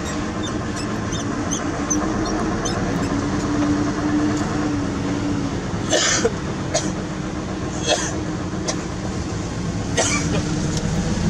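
Fuso self-loader truck's diesel engine running under way, heard inside the cab, its note rising a little and then falling away about halfway through. A few sharp knocks come in the second half.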